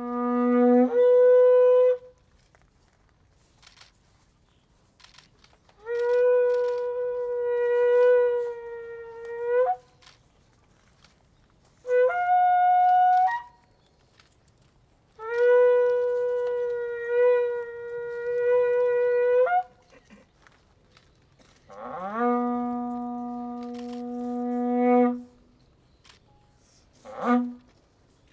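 A wind instrument blown in long held notes, about six phrases of a few seconds each with quiet pauses between. A couple of the notes begin low, about an octave down, then glide or jump up to the higher note.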